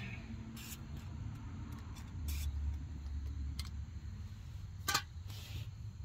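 A few short hisses of aerosol penetrating oil being sprayed onto a rusty suspension bolt, with a sharp click about five seconds in.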